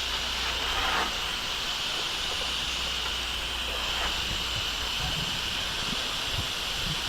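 An 8-gallon-per-minute pressure washer spraying: a steady hiss of water jetting from the wand, with the machine's steady low hum beneath.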